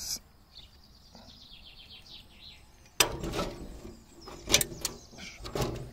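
A faint bird trill falling in pitch in the first couple of seconds, then a sharp click about three seconds in, followed by clattering, rustling and more clicks as hands work wire connectors and plastic parts while fitting a car door speaker.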